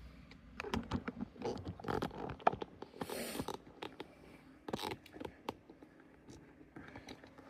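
Handling noises: a run of light clicks, knocks and rustles, with a short scraping rustle about three seconds in, growing sparse and quieter in the last couple of seconds.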